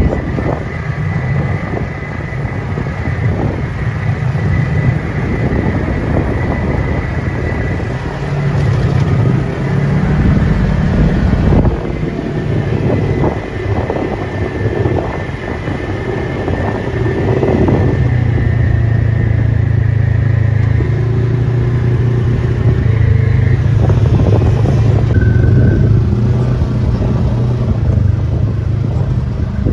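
Off-road vehicle engine running steadily while driving a trail, with a stronger, steadier engine note from about two-thirds of the way through.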